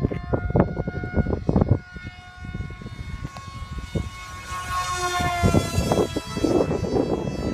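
High-pitched whine of an RC plane's electric brushless motor (3000 kv outrunner) spinning a small 5x5 pusher prop in flight. Its pitch rises and then falls about five seconds in as the plane passes by. Irregular low rumbling thumps sit under it.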